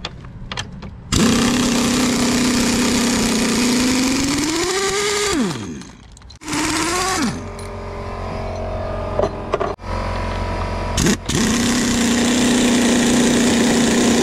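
A power tool's motor running in long stretches with a steady hum; a few seconds in, its pitch rises and then winds down as it stops, a short burst follows, and it runs steadily again over the last few seconds.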